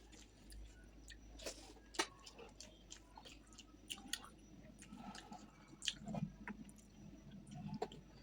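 Close-up mouth sounds of someone eating fish curry with rice: soft wet chewing, lip smacks and small clicks, with a sharper smack about two seconds in and again near six seconds.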